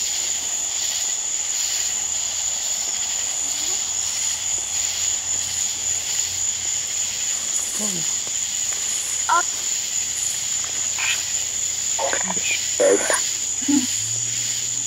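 Steady high-pitched chorus of night insects, with a few short, faint voice-like sounds in the second half.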